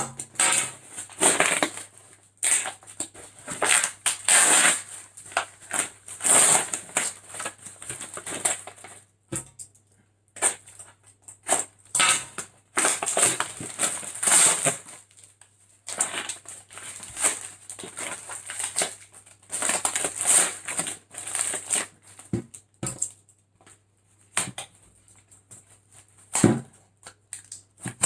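Brown cardboard and paper parcel wrapping being torn and crumpled by hand: irregular bursts of ripping and crackling with a few short pauses.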